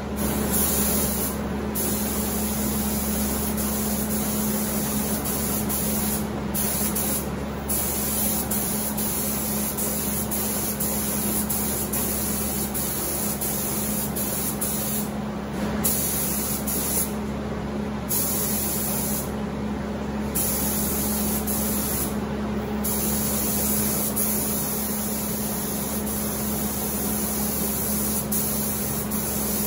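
Spray gun spraying primer: a steady hiss of air that drops out briefly several times, over a steady low hum.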